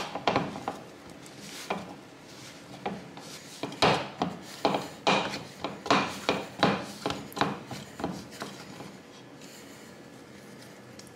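Hands kneading a ball of dough in a floured wooden bowl: dull thuds and rubbing scrapes as the dough is pressed and turned against the wood. A few soft strokes at first, then a quick even run of about two or three a second from a few seconds in, fading out before the end.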